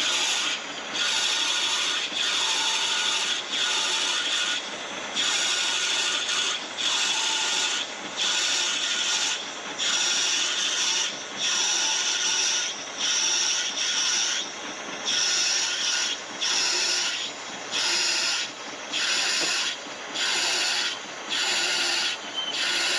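A 47/64-inch twist drill boring into a bearing-bronze water-pump bushing turning in a 1911 Hendey lathe. It makes a high rasping cut that comes in bursts about once a second, with short quieter gaps between.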